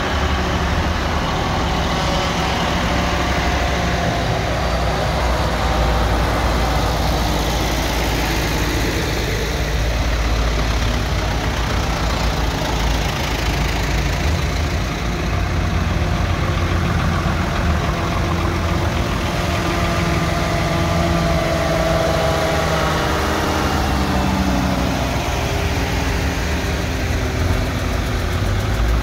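Large diesel tractors driving slowly past one after another, first a Ford TW-series and then a Fiatagri, their engines running with a steady low rumble. The engine note shifts in pitch about two-thirds of the way through.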